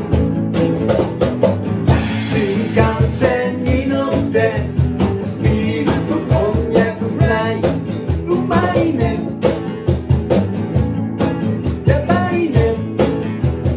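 Small acoustic band playing: two guitars strumming over a steady beat on a cajón, with a singer coming in about two seconds in.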